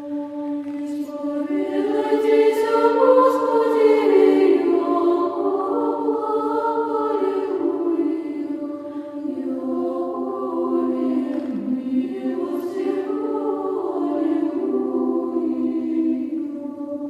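Choir singing slow, sustained chant-like music in layered chords over a steady held low note.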